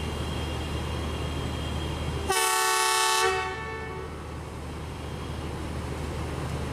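Pakistan Railways diesel locomotive horn sounding one chord-like blast of about a second, over a steady low engine hum.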